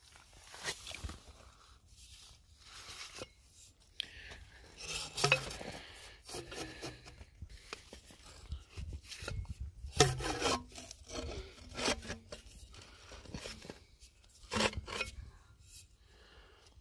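Steel core-drill rod being pulled up by hand out of a shallow, muddy drill hole: irregular scraping and rubbing of metal against rock and wet mud, the loudest scrape about ten seconds in.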